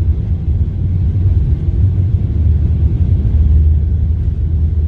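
Deep, steady rumble of a Boeing 777-300ER's GE90 jet engines at takeoff thrust.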